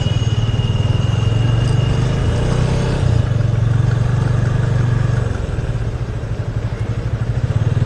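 Motorcycle engine running at low speed under light throttle, with a rapid low exhaust pulse. It eases off about five seconds in as the bike slows.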